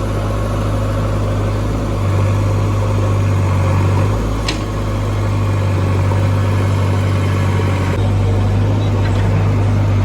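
JCB 3DX backhoe loader's diesel engine running with a steady low hum that shifts in level a few times. A short sharp click sounds about four and a half seconds in.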